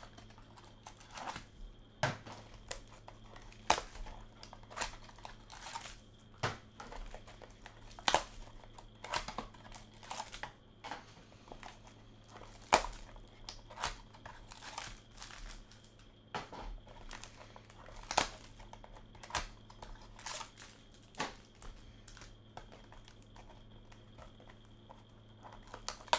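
Clear cellophane wrap being torn and crinkled off boxed Panini Spectra football card packs: a run of irregular sharp crackles and rips.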